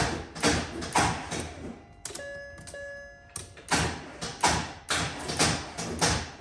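Mercedes S63's M156 V8 being cranked by the starter without firing, in a heavy rhythm of about two surges a second: a hard start that is worse when cold. About two seconds in the cranking stops briefly, and a short electronic chime sounds twice before the cranking resumes.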